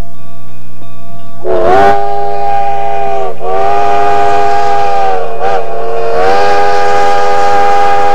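Chime steam whistle of a narrow-gauge steam locomotive blowing a series of blasts: two long ones, a short one, then a long one, each sliding up in pitch as it opens. The long-long-short-long pattern is the grade-crossing signal.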